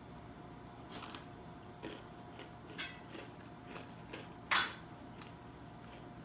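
A spoon scraping and clicking inside a small yogurt cup in short, scattered strokes, the loudest scrape about four and a half seconds in.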